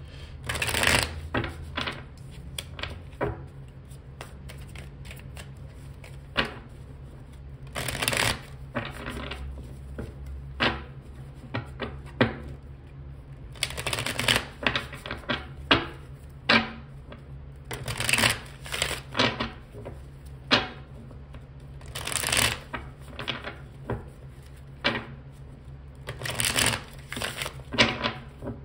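A tarot deck being shuffled by hand: a long run of brisk, irregular riffling and tapping strokes, each lasting up to about half a second, over a steady low hum.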